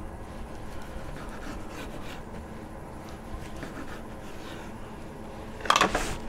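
A long slicing knife sawing through the crusty bark of smoked pork on a wooden cutting board, making soft rasping strokes. Near the end comes one short, loud clatter as the knife is set down.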